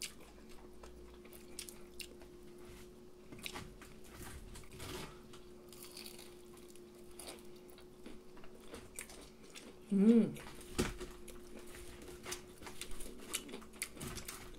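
Close-up eating sounds of people biting and chewing crispy fried cutlet, fried chicken and rice, with scattered small crunches and wet mouth clicks. A short hummed voice sound about ten seconds in is the loudest moment, and a faint steady hum runs underneath.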